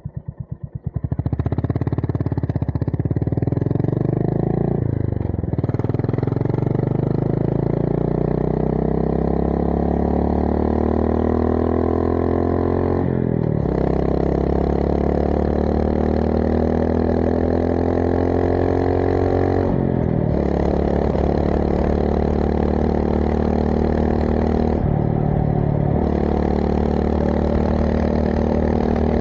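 Honda GB350S single-cylinder engine through a MILLER Spitfire slip-on exhaust, pulling away from a slow idle beat and accelerating through the gears. The note rises steadily in each gear and drops back at four gear changes.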